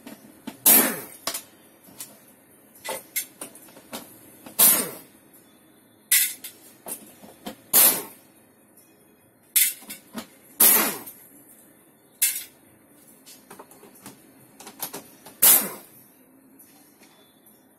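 Compressed-air blow gun on a coiled air hose firing a dozen or so short hissing blasts at irregular intervals, blowing dust off a TV's plastic back cover.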